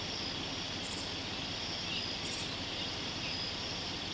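Steady outdoor background hiss with short bursts of high, rapidly pulsing insect chirping, twice.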